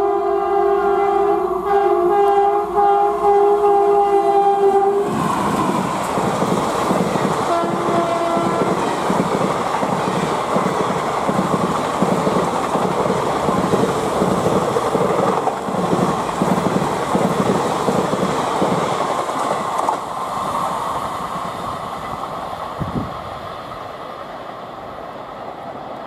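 WAP4 electric locomotive's horn blaring for about five seconds, then a short second honk, as the express passes at speed. Then the coaches' wheels clatter rhythmically over the rail joints, fading as the train moves away.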